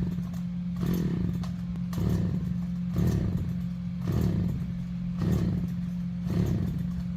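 An engine running steadily, with a regular surge about once a second.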